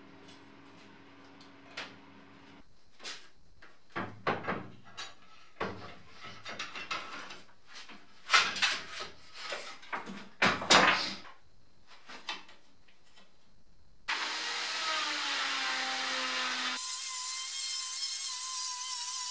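Woodworking: scattered knocks and short scraping strokes on wood, the loudest a few sharp strokes about eight to eleven seconds in. About two-thirds of the way through, a power tool starts running steadily, and a plunge router's high, steady whine follows near the end.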